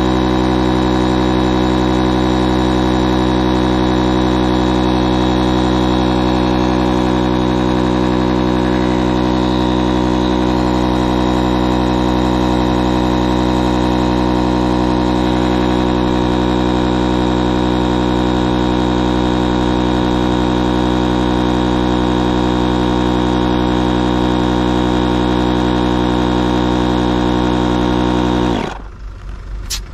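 Electric high-pressure inflation pump running steadily with a loud, even motor hum as it inflates an inflatable boat's tubes through its hose. The pump stops abruptly near the end, followed by a single click.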